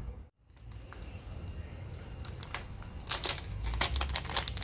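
Plastic packet of fishing hooks being handled, crinkling, with a run of crackles and clicks in the second half.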